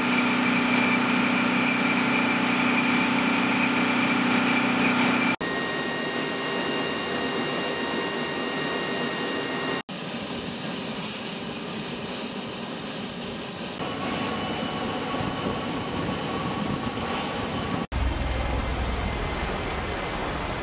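MV-22 Osprey's turbines running on the ground: a steady whine over loud hiss, broken by three sudden cuts. Near the end a deeper rotor rumble takes over as an Osprey flies overhead.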